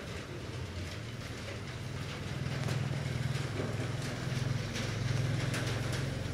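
Aquarium aeration humming steadily, with the bubbling of the air stone in the tank; the hum grows a little louder a couple of seconds in.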